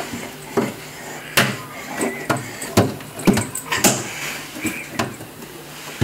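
A toddler climbing stairs: irregular knocks and thumps of hands and feet landing on the steps, about ten in all.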